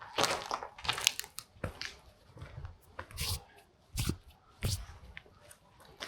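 Footsteps crunching on rubble and debris, an uneven series of sharp crackling steps roughly every half to one second.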